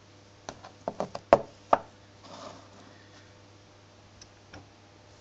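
A small Galanz microwave turntable motor knocking against a wooden tabletop as it is handled and turned over: a quick run of about seven sharp knocks in the first two seconds, then a soft rustle and two faint ticks.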